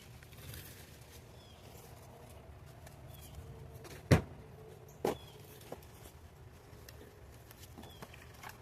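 A few sharp knocks or taps over a faint steady background: the loudest about four seconds in, a second about a second later, then a smaller one.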